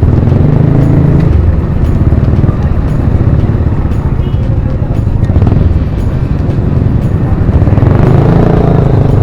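Wind buffeting an action camera's microphone while cycling on a road, a loud steady low rumble, with road traffic mixed in.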